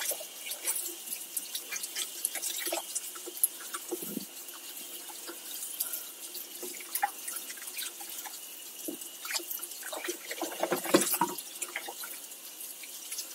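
Water splashing and dripping in a sink as bicycle parts are rinsed and scrubbed, with irregular small clicks and knocks of the parts being handled. There is a busier patch of splashing near the end.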